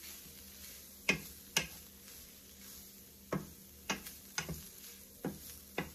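Wooden spatula tapping and scraping against a frying pan as shredded saltfish is stirred and spread out, about eight sharp taps at an uneven pace.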